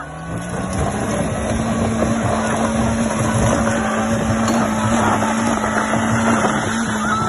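Maruti Suzuki Wagon R hatchback's engine revved hard and held at high revs, with the tyres spinning and scrabbling on loose gravel. The car is struggling for grip on a steep rocky climb.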